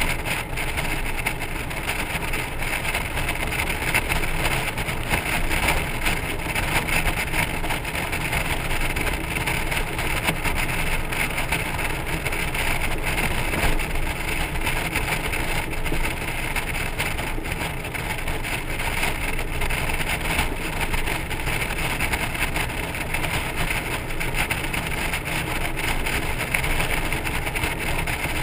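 Honda Gold Wing motorcycle cruising at highway speed, heard from the trailer it tows: a steady rush of wind and road noise with the engine's hum underneath.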